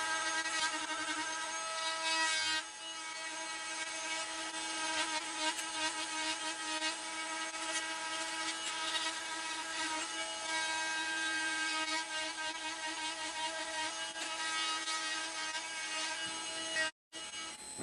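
Battery-powered router with a 1/4-inch bearing-guided bit running steadily while cutting a rebate into oak, a constant motor whine under a rough cutting noise. It stops abruptly near the end and starts again.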